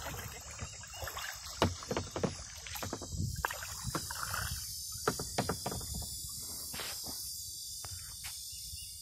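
Canoe being paddled: paddle strokes splashing in the water with scattered irregular knocks, over a low rumble on the microphone.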